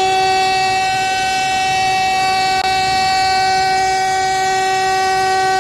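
Loud steady alarm tone held at one pitch, a siren-style warning sound from a mock emergency-alert broadcast.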